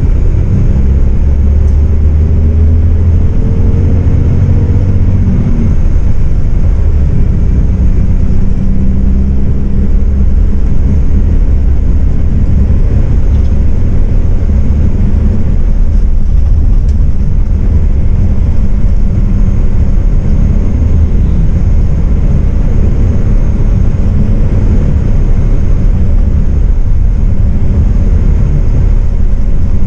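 MAN 18.350 Modulo bus driving on the highway, heard from inside the passenger cabin: a steady low engine drone with road and tyre rumble. Over the first five seconds or so the engine note climbs in pitch, then settles into an even cruising rumble.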